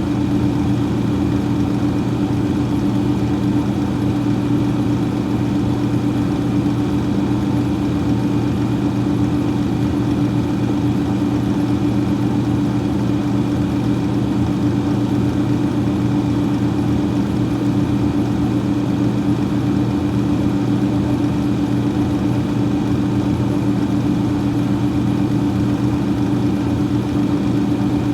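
Freezer fan running steadily: a constant low hum with a few steady tones and an airy whir, unchanging throughout.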